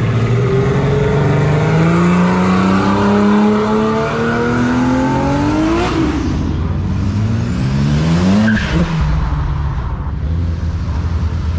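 A car engine accelerating hard away, its revs climbing steadily for about six seconds before dropping sharply at a gear change. It climbs again briefly, drops at another shift, then settles to a lower, steady exhaust rumble.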